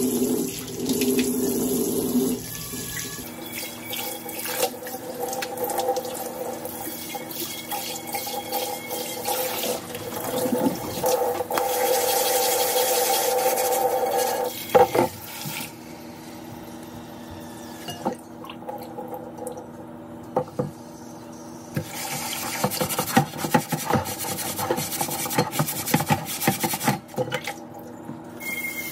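Cold tap water running into a stainless steel sink and over a clay pan as it is rinsed and scrubbed by hand, with occasional knocks and scrapes as the clay is handled.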